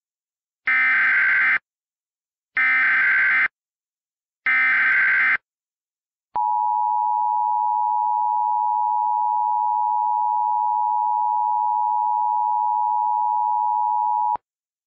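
Emergency Alert System tones: three short identical bursts of SAME header data, each under a second, then the EAS attention signal, a steady two-tone tone held for about eight seconds that cuts off sharply. Together they mark the start of an EAS alert, here coding a Civil Emergency Message.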